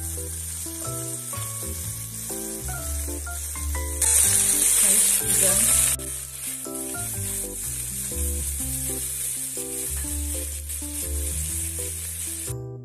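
Sliced carrots, green beans and onions sizzling in oil in an enamelled pan, with a louder burst of sizzling for about two seconds about four seconds in. Background music with piano-like notes plays throughout.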